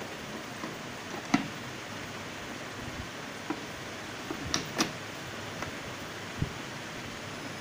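Several sharp plastic clicks and knocks as a clear mixer jar is fitted and turned onto a Sumeet mixer-grinder's base, over a steady low hiss.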